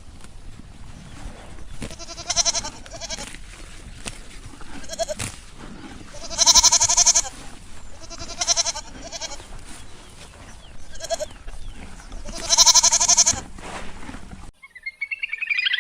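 Goat bleating: a series of separate quavering bleats, short and long, the loudest two about six and twelve seconds in. Near the end the bleats cut off and music begins.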